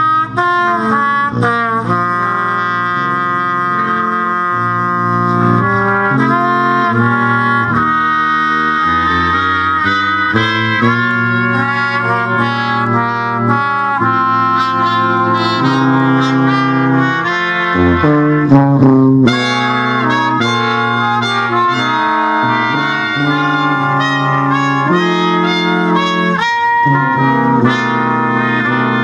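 A brass quintet playing a melodic piece, one sustained note after another without a break.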